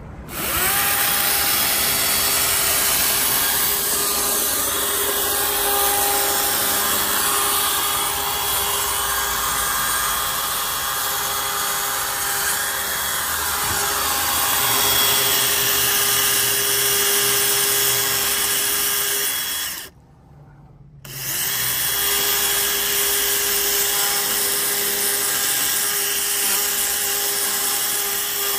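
DeWalt 60-volt brushless battery chainsaw running steadily as its 16-inch bar cuts into a tree stump and its roots. The motor briefly stops for about a second partway through, then starts again.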